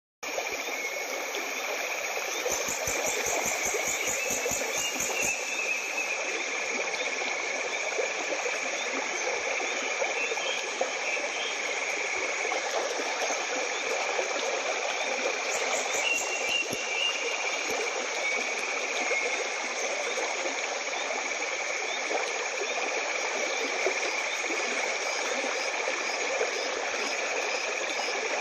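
A steady, even rushing noise that starts abruptly, with faint high tones drifting through it and a short run of quick ticks a few seconds in.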